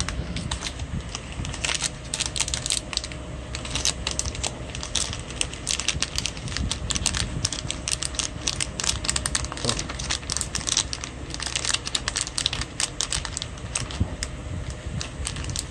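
Thin plastic wrapping of a new smartphone crinkling and crackling as hands slide the phone out of its sleeve and peel the protective film off, a dense run of quick irregular crackles.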